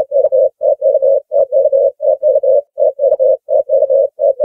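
Ring-necked dove cooing: a fast, even run of short hooting notes at one steady pitch, grouped in twos and threes and repeated over and over without pause.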